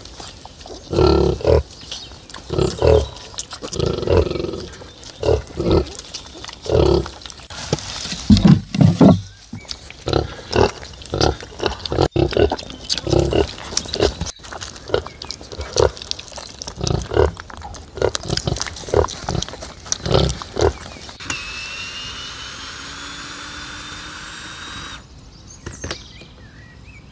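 A nursing sow grunting in short repeated grunts about once a second while her piglets suckle. Near the end it gives way to a small engine, a chainsaw, running steadily with its pitch slowly rising for a few seconds before cutting off suddenly.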